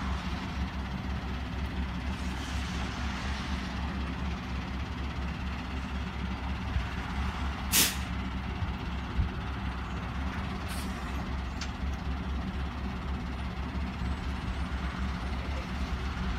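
Flatbed tow truck's engine idling steadily with a low rumble. A single brief, sharp burst of noise comes about eight seconds in, and two fainter ones follow a few seconds later.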